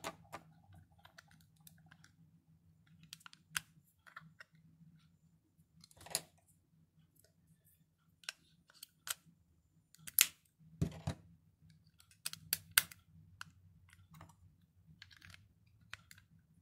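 Small plastic clicks and taps of a Coby MP-C827 MP3 player being handled as a battery is fitted and its battery cover is put back on, with a few sharper snaps past the middle.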